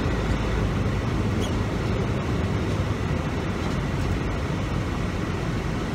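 Semi tractor's diesel engine running steadily under way, heard from inside the cab as a low, even drone with road noise.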